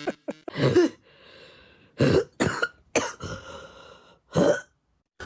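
Several short coughing sounds, about six, spaced irregularly with brief quiet gaps between them.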